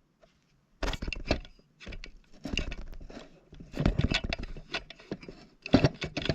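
Irregular clicks, knocks and scraping from the opened plastic module of a Wheelock TB-593 bell being handled, starting about a second in, with a denser cluster of knocks near the end.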